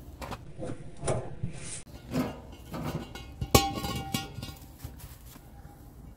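Heavy steel rear brake drum of a semi truck being handled and knocked, with metallic clanks and a sharp strike about three and a half seconds in that leaves the drum ringing like a bell.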